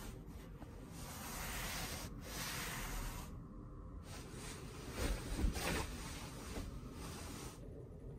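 A hand rubbing across the cotton bed sheet of a capsule-hotel mattress, a steady rustling hiss. A little after five seconds comes a louder rustle with soft thumps as a body shifts on the mattress and bedding.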